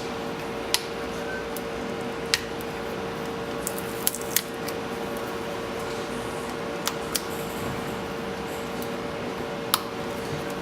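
About seven sharp, separate clicks or taps, irregularly spaced, over a steady hum.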